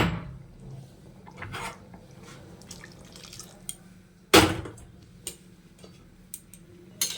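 Kitchen clatter of cookware and utensils: a few sharp knocks, the loudest at the start and another about four seconds in, with lighter scrapes and clinks between them over a steady low hum.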